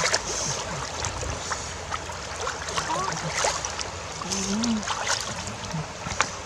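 Shallow river water running steadily, with small splashes and sloshes as hands and legs move through it.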